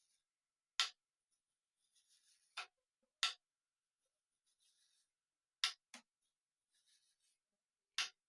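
A fret-checking tool being worked along an electric guitar's frets to find high ones: faint scraping as it slides, and a sharp click each time it is set down or rocks on a fret, six clicks a second or two apart.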